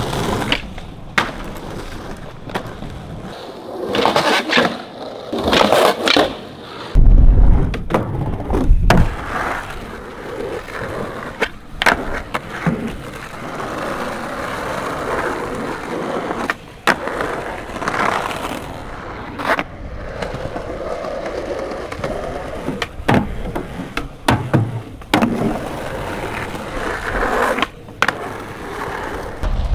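Skateboard wheels rolling on concrete, broken by repeated sharp clacks and thuds of the board hitting the ground, the heaviest a few seconds in.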